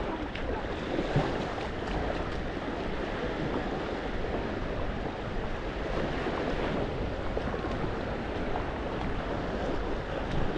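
Beach ambience: sea surf washing steadily on the shore, with wind buffeting the microphone.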